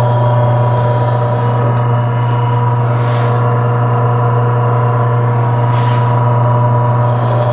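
A KWS 10-inch, 320-watt electric meat slicer running with a steady motor hum and whine while it slices a thawed chicken breast. Faint swishes of the cut come about three and six seconds in.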